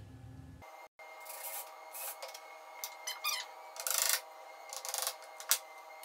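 Scattered short rubbing and scraping sounds of hand work on a wooden birdhouse, over a faint steady hum.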